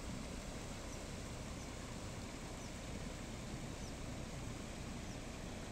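Steady rush of rainwater flooding over a field and spilling away. A few faint, short, high chirps sound now and then over it.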